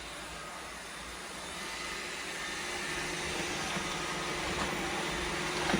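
Roomba robot vacuums running: a steady hiss with a faint hum, growing somewhat louder about two seconds in.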